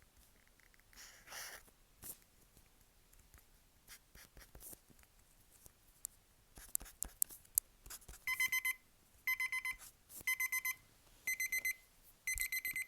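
Paint marker scratching and tapping on paper, then from about eight seconds in a digital timer's alarm sounds five quick bursts of rapid high beeps, about one burst a second, signalling that the drawing time limit is up.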